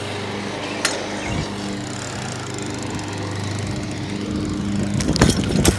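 An engine running steadily: a low hum whose pitch stays level. A few short knocks come about five seconds in.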